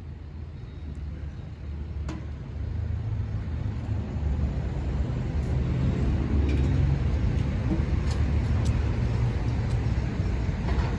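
Diesel engine of a gasoline tanker semi-truck idling with a steady low rumble, growing louder over the first several seconds as it comes nearer, then holding steady.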